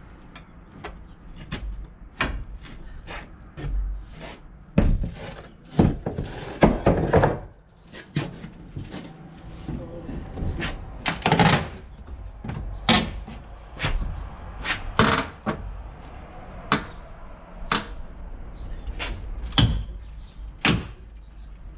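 Hammer striking wooden boards and framing: irregular sharp knocks, about one a second, with a couple of longer rough stretches of noise about a quarter and half way through.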